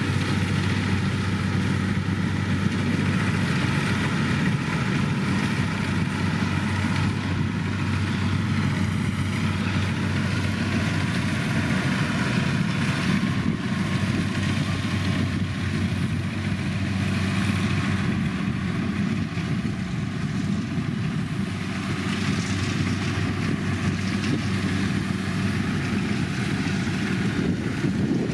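Kubota DC105 combine harvester's diesel engine running at a steady speed, a constant low hum with machinery noise over it.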